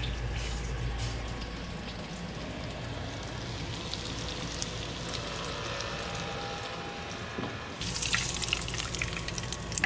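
Breaded grouse breast strips sizzling in hot oil in a frying pan, a steady hiss that grows louder and more crackly, with sharp spatters, about eight seconds in.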